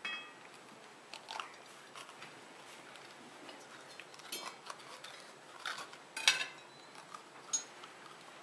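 A knife cutting out the core and seeds of a green sweet pepper, with scattered clicks and scrapes of the blade and hands against a ceramic plate; the sharpest click comes about six seconds in.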